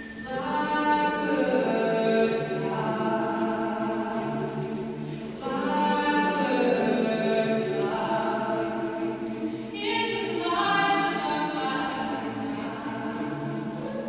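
Mixed-voice choir of women and men singing a cappella, in sustained chords, with fresh phrases swelling in near the start, about five and a half seconds in, and about ten seconds in, where higher voices enter.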